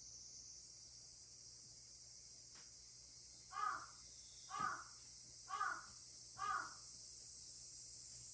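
A crow cawing four times, about a second apart, over a steady high shrill of insects that grows a little stronger about a second in.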